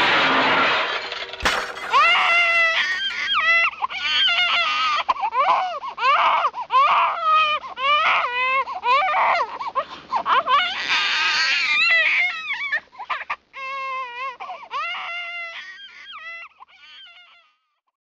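A crash noise dying away in the first second, then high-pitched wailing crying, one rising-and-falling cry after another, which thins out and fades near the end.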